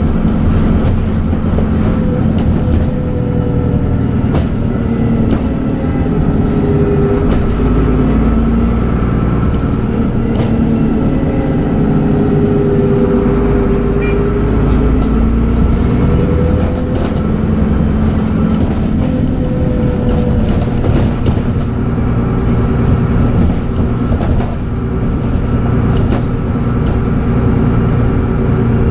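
Dennis Trident double-decker bus engine running under way, its note rising and falling as it pulls, with a steady high turbocharger whistle over it.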